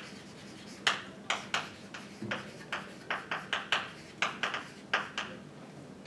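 Chalk writing on a blackboard: a quick, irregular run of short taps and scratches, one for each stroke of the letters.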